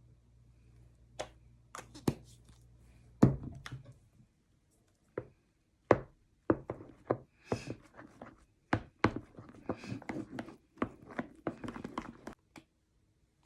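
Irregular clicks, taps and knocks of slime ingredients being handled and mixed in a container, with one loud knock about three seconds in and a busy run of quick clicks and short scrapes through the second half.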